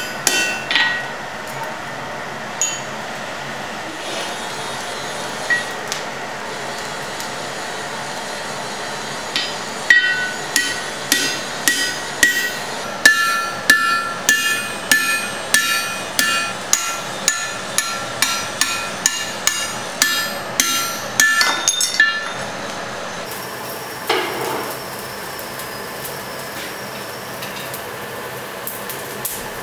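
A blacksmith's hammer driving a punch through a red-hot steel bar on an anvil, each blow ringing. A few scattered blows come first, then a steady run of about two blows a second from about ten seconds in until a little past twenty seconds, over a steady background rush.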